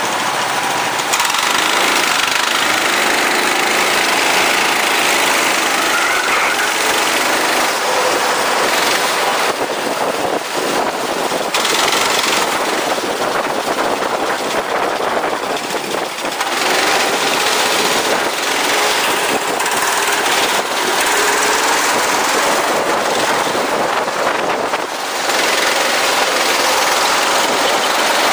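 Go-kart engine running hard, its pitch rising and falling with speed, under a loud, steady rush of noise.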